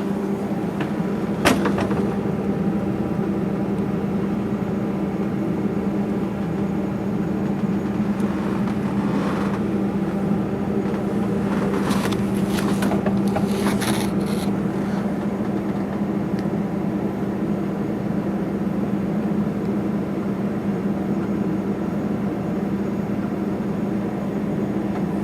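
A steady machine hum with a strong low tone, with a sharp click about a second and a half in and a brief run of clicks and clatter about twelve to fourteen seconds in.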